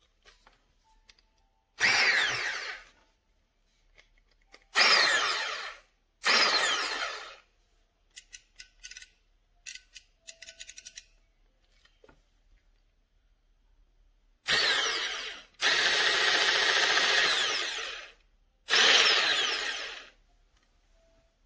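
Ganiza 1000 W hand blender motor run in short pulses: six bursts that start abruptly and wind down with a falling whine, one held about two and a half seconds. A patter of small clicks comes between the third and fourth bursts.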